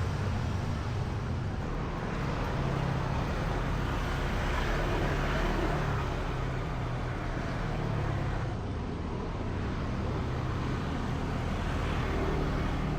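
Steady motor-vehicle rumble and road noise from a car in motion, with a continuous low engine hum.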